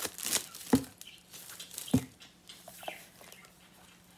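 Plastic wrapper crinkling and tearing as it is pulled off a hardcover journal, in scattered crackles with a few sharper snaps near the start and about two seconds in.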